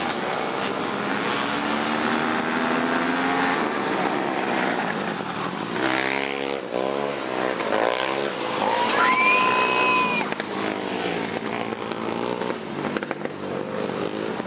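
Several racing three-wheeler engines running hard, with one passing close about six to eight seconds in, its pitch sweeping as it goes by. Just after, a high whistle-like tone is held for about a second and a half.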